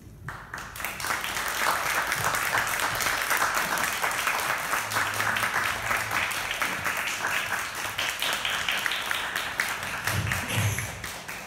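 Small audience applauding, building up over the first second or so and holding steady, then thinning out near the end.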